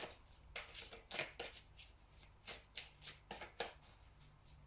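A deck of oracle cards being shuffled by hand: a run of short, crisp card strokes, about three a second, somewhat uneven in spacing.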